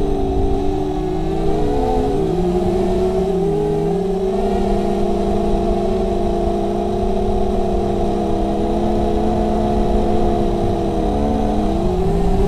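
Brushless motors and 5×4-inch propellers of a 250-size FPV quadcopter, heard from its onboard camera: several close whining tones, one per motor, that dip and swell with throttle about two seconds in, again near four seconds and again near the end, over a low rumble.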